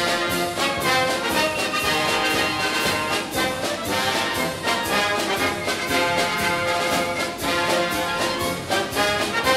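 Orchestral background music with brass, playing steadily.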